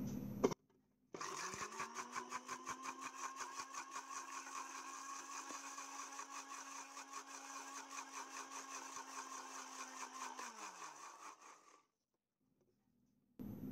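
Electric mixer grinder starting about a second in. Its motor rises quickly to a steady whine and runs for about nine seconds, blending egg and a first portion of oil into mayonnaise, then is switched off and winds down with a falling pitch.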